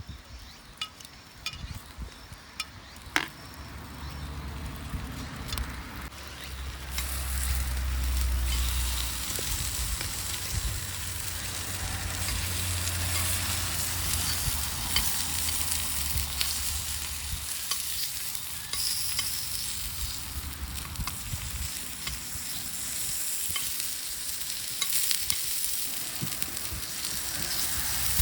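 Food sizzling in a hot pan, the hiss building up a few seconds in after some scattered clicks, then holding steady.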